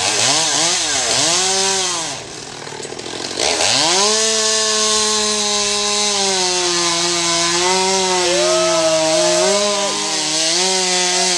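Gas chainsaw revved in quick repeated blips, dropping back to idle about two seconds in. It then opens up to full throttle and runs steadily under load as it cuts through a thick pepper tree limb.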